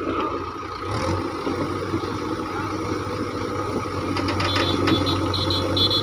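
Diesel engines of a JCB backhoe loader and a farm tractor running steadily while the backhoe's bucket pushes on a loaded trolley. A few short high chirps sound near the end.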